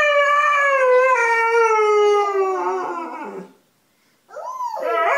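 Husky-type dog howling: one long howl that slowly falls in pitch and dies away, then after a short pause another howl starts near the end.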